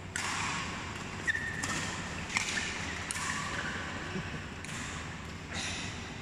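A badminton rally: rackets strike the shuttlecock with a handful of sharp hits, spaced about a second apart. A shoe squeaks on the court floor between about one and two seconds in.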